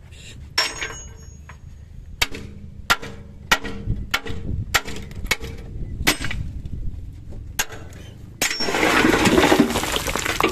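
Steel dump-truck tailgate being struck with a metal bar to free it: about ten sharp, ringing metallic knocks, roughly every half second to second, over the low run of the truck's engine. About eight seconds in, the tailgate gives and a load of sand and gravel pours out in a loud, steady rush.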